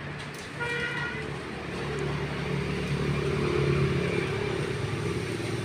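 An engine running steadily, its hum swelling a little towards the middle, with a short higher-pitched sound just under a second in.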